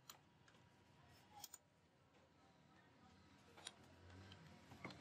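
Near silence with a few faint, sharp computer mouse clicks spread across the few seconds.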